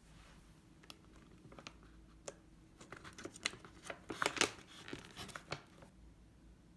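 Plastic packaging crinkling as hands handle a powder sachet and open a pouch of powder, with a flurry of louder crackles and rips about four to five and a half seconds in.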